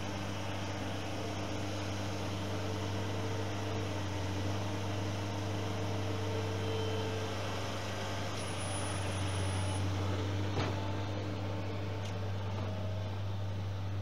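Skid steer engine running steadily with a low, even hum as the loader lifts and carries off a pulled stump. A single sharp knock comes about ten and a half seconds in.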